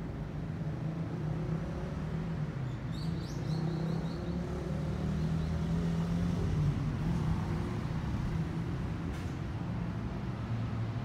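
Low engine hum of a road vehicle, growing louder toward the middle and then easing off, with a short run of high chirps about three seconds in.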